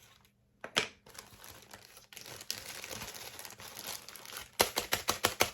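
A small plastic bag crinkling and rustling as it is handled, with a quick run of sharper crackles near the end.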